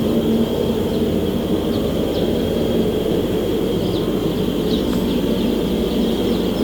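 Week-old chicks peeping in short, high, scattered calls over a steady low rumble.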